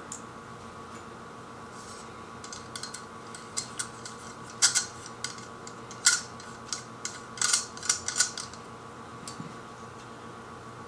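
Small metal clicks and scrapes as the tiny side screws are worked out of a camera T-ring in the hands. The clicks come irregularly, bunched in the middle, over a steady low hum.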